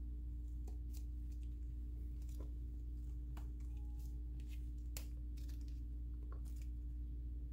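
Butter slime being stretched, folded and pulled apart by hand, giving a scatter of small sharp clicks and pops at uneven intervals. A steady low hum runs underneath.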